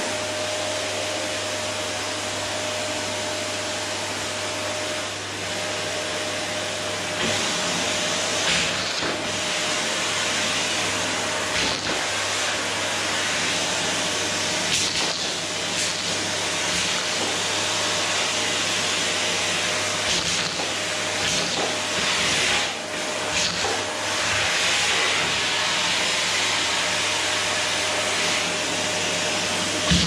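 Electrolux canister vacuum cleaner running steadily, a constant motor whine under a rushing hiss of suction. The hiss brightens and wavers as the hose nozzle is worked along the wooden floor, with a few short knocks.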